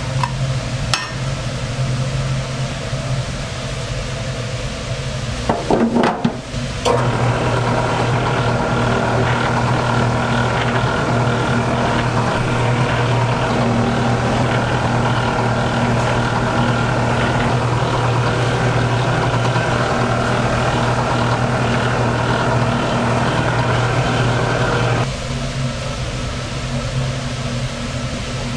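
A machine motor hums steadily, preceded by a few knocks and clatter. It switches on about seven seconds in and cuts off suddenly after about eighteen seconds.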